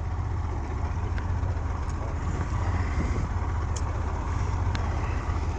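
Pontoon boat's outboard motor running steadily, a constant low hum with a few faint clicks over it.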